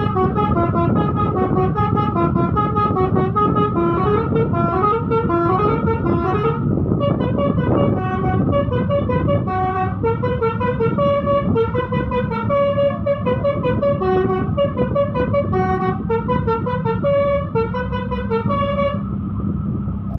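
A bus's telolet basuri musical horn plays a quick tune of stepping, flute-like notes over the steady hum of the running bus. The tune stops near the end, leaving the hum.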